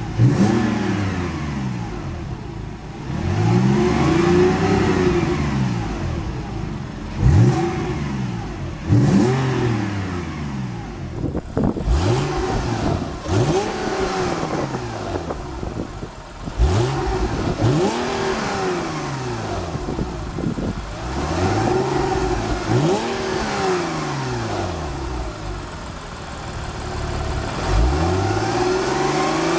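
Porsche 911's flat-six engine revved in repeated quick throttle blips, a dozen or so, each climbing and falling back, with the engine revving freely.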